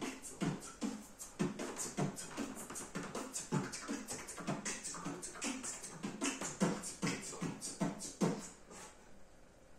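A man beatboxing into a microphone: mouth-made kick thumps and hissing snare sounds in a steady beat of about two a second, stopping shortly before the end.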